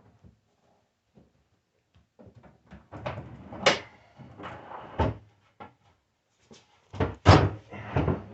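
Half-inch plywood drawer being pushed back into its cabinet: scraping and clattering from about two seconds in, with several sharp wooden knocks.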